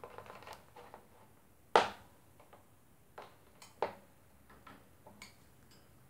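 African grey parrot clambering on its wire cage, beak and claws clicking and knocking on the metal bars: a crackly cluster at the start, the loudest knock just under two seconds in, and a few lighter clicks after.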